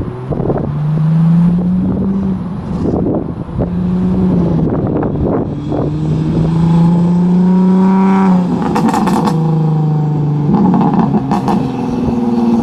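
Infiniti G35's VQ35DE V6 running through a custom single-exit exhaust, pulling through the gears: the engine note climbs and drops back at each shift, with the longest pull from about five to eight seconds in. Crackling from the exhaust comes between the pulls.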